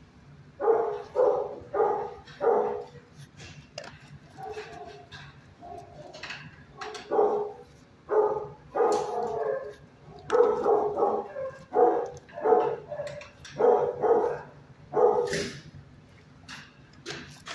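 Kennel dogs barking repeatedly: four quick barks about a second in, then scattered barks and a longer run of barks in the second half.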